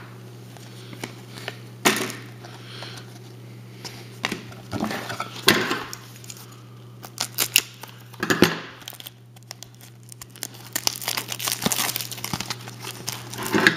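Baseball trading cards and a foil card-pack wrapper being handled: scattered rustles and crinkles, busiest near the end as the pack is pulled from the box. A steady low hum runs underneath.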